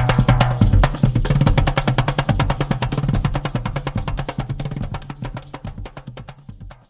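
Background music led by fast, rhythmic drumming and percussion, fading out steadily toward the end.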